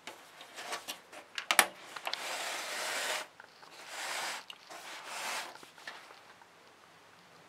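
Handling noise from a Technics ST-GT1000 DAB tuner being turned around by hand on carpet: a few knocks, the loudest about one and a half seconds in, then three stretches of the case rubbing and sliding over the carpet.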